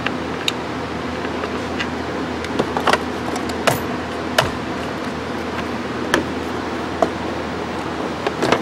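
Plastic interior trim panels being fitted back into place: a scattered series of sharp clicks and knocks over a steady background hum.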